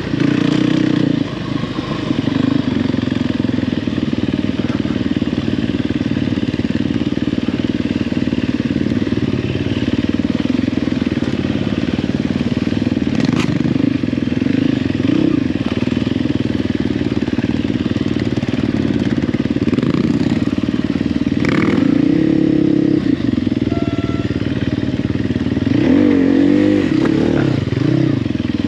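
Off-road trail motorcycle engine running at steady low revs, with brief revs about two-thirds of the way through and again near the end, and a few short knocks.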